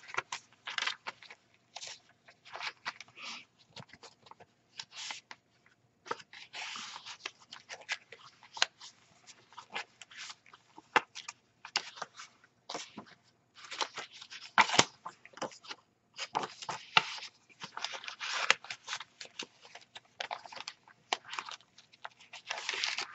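Paper pages, tags and inserts of a handmade junk journal being turned and handled: irregular rustling and crinkling of book and coffee-dyed paper, with sharper paper flicks in between, the loudest about two-thirds of the way through.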